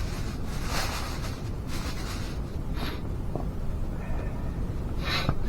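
Steady low rumble of wind buffeting an ice-fishing shelter, with a few short rustles spread through it.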